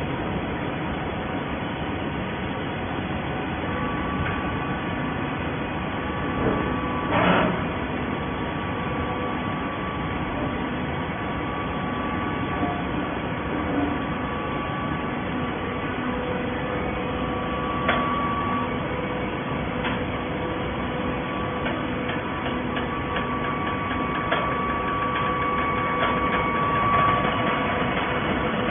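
Horizontal baler machinery running: a steady mechanical hum with high whining tones and a few short clanks, the loudest about seven seconds in.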